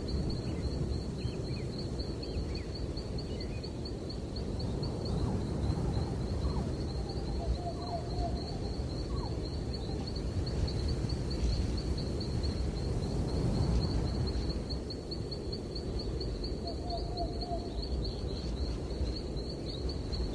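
Dogs moving and sniffing close to a trail camera: a steady low rustling, snuffling noise. Over it runs a continuous, high, rapidly pulsing trill like an insect's, with a few faint short chirps.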